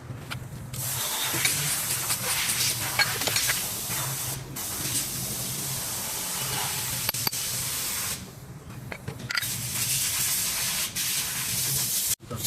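Steady hissing spray over a low hum, breaking off briefly about four and a half seconds in and again for about a second past the eight-second mark.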